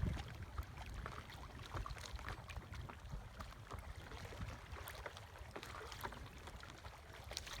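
Water sounds around a canoe on a lake: small irregular splashes and drips from paddling, over a low rumble of wind on the microphone.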